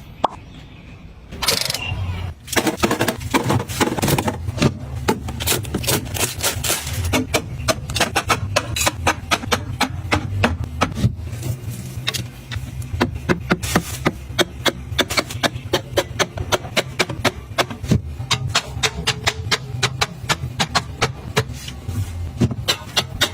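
Rapid sharp clicks and knocks of hard objects being handled, several a second, over a steady low hum.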